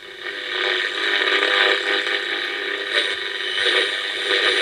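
Rushing static from a very simple single-coil (non-superheterodyne) shortwave receiver as its variable capacitor is tuned. The noise swells up within the first second and stays loud, with no clear station. This is a reception peak of band noise rather than a single station, the sign of the set's low selectivity.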